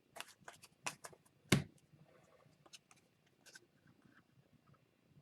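Hockey trading cards and packs handled on a tabletop: a string of light clicks and rustles, with one louder thump about a second and a half in.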